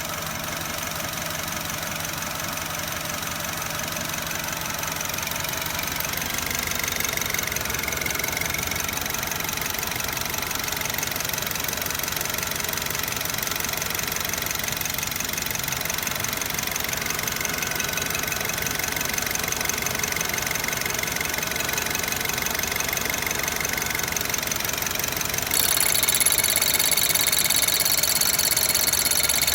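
BMW E87's N43B20A 2.0-litre four-cylinder direct-injection petrol engine idling roughly, a fault the owner ties to the high-pressure fuel pump's connector being plugged in. Near the end the sound gets louder.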